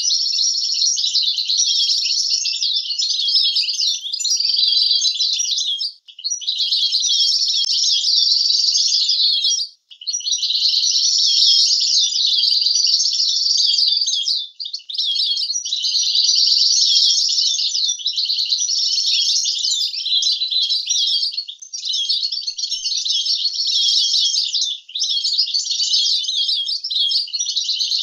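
European goldfinch singing: a long, fast, twittering and chattering song, broken only by a few brief pauses.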